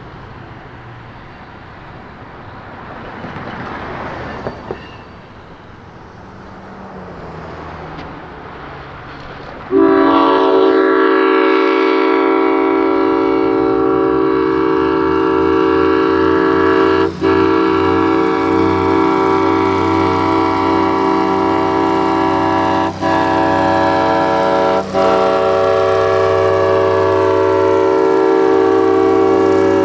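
Centercab diesel locomotive with its engine rumbling, then its multi-tone air horn sounds suddenly about ten seconds in and is held loud and steady for the rest, broken by three brief gaps.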